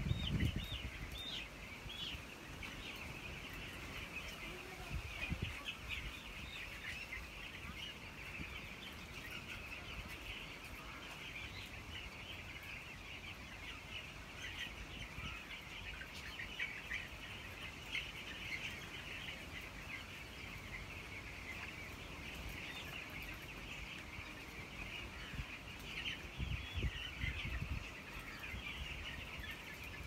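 A large flock of young broiler chicks peeping continuously, many overlapping high chirps. Low rumbling noises come in right at the start and again near the end.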